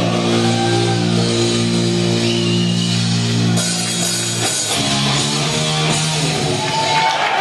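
Live hard-rock band of distorted electric guitars, bass and drums holding a long sustained chord, then crashing cymbals and a second held chord about four and a half seconds in, as the song comes to its ending.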